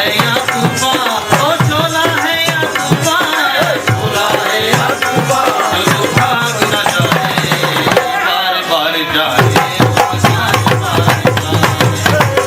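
Hindu devotional bhajan music: hand drums play a fast, steady beat under a wavering melody line.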